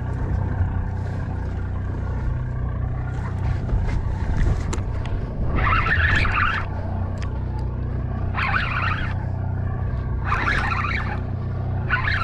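Boat engine running steadily with a low, even hum. From about halfway through, four short higher-pitched bursts of noise, each about a second long, come over it.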